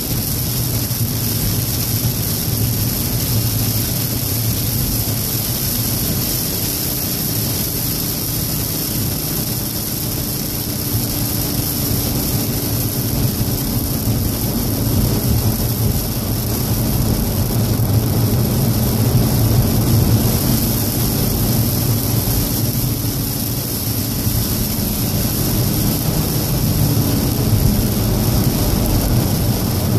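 In-cabin sound of a 2014 VW Golf VII R with its turbocharged 2.0-litre four-cylinder driving fast on a soaked track in heavy rain. A steady engine drone mixes with road noise and the constant hiss of water spray and rain on the car.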